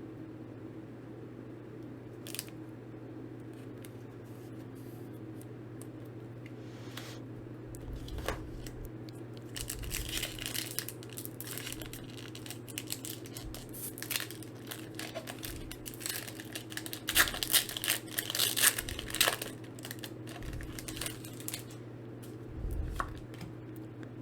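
Foil Pokémon booster pack wrapper being torn open and crinkled, in irregular bursts of tearing and rustling that start about a third of the way in and are loudest past the middle, over a steady low hum.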